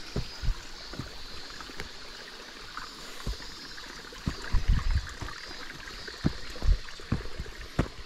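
A mountain stream flowing steadily, with a few dull low thumps scattered through.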